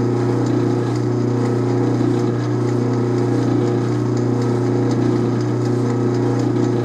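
Atlas metal lathe running at a steady speed, its motor and drive giving a constant hum, while a fine drill bit in a hand-held pin chuck drills a small hole into the spinning workpiece.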